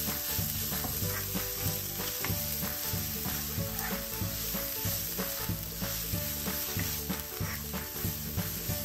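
Onion and garlic frying in hot oil with whole spices, a steady sizzle with a spoon stirring through the pan.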